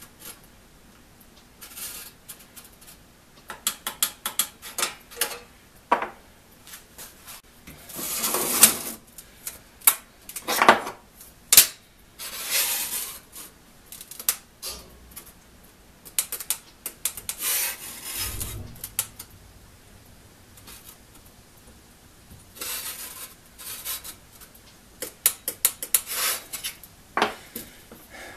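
A steel saw-set gauge (a 'spider') being slid along a one-man crosscut saw blade and set onto tooth after tooth to check their set. It makes a string of light metal clicks and scrapes, with several longer scraping sweeps and one dull thump a little past the middle.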